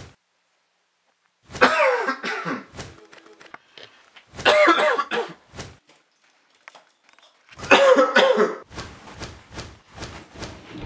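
A man coughing hard in three hoarse fits, each about a second long with a few seconds' pause between them.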